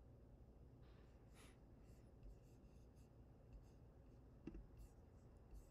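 Near silence: faint room tone with a low hum, and one faint click about four and a half seconds in.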